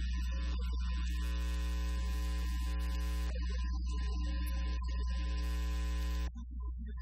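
Loud, steady electrical mains hum with a buzzing whine of layered tones over it that shift now and then. It cuts off abruptly about six seconds in.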